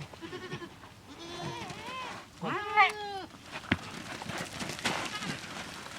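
Goats bleating: three wavering bleats, the last, about two and a half seconds in, the loudest.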